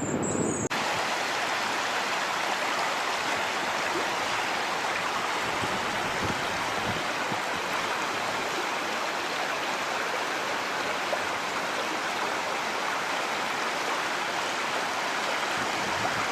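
Steady rush of flowing floodwater, starting abruptly under a second in.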